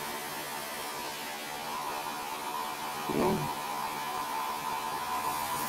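Steady electric hum with a hiss behind it, and one short low sound about three seconds in.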